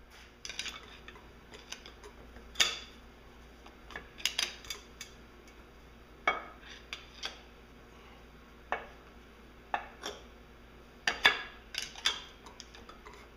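Metal parts of a MerCruiser Bravo sterndrive's upper gear set clinking and knocking against the gear housing as they are worked loose by hand: an irregular string of sharp clinks, the loudest about two and a half, six and eleven seconds in.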